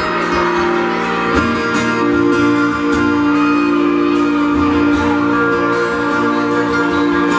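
Live country band playing the instrumental opening of a slow song, guitars holding sustained chords over a steady beat of light high ticks. The chords change about a second and a half in and again past the middle.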